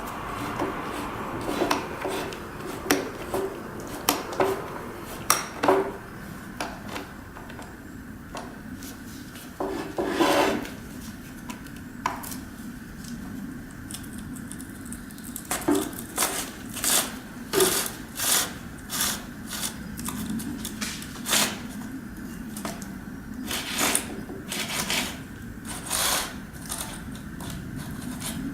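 Metallic clinks, rattles and clicks of a Makita chainsaw's chain and guide bar being handled and fitted by hand, coming in irregular bunches that grow busier in the second half.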